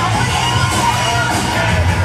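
Loud pop music with a sung vocal line over a steady bass, played over a club sound system for a stage performance.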